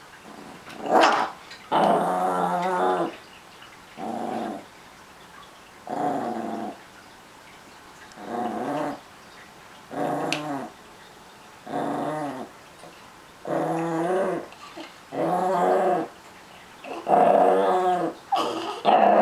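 Small Chihuahua–miniature pinscher mix dog growling in short repeated bouts, about ten growls each lasting under a second or so, one to two seconds apart: possessive guarding of its treats.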